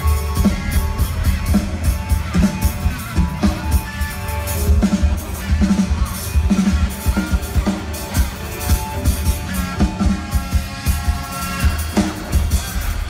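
Live rock band playing on an outdoor festival stage, with a steady drum-kit beat and guitar, heard through the PA from within the crowd.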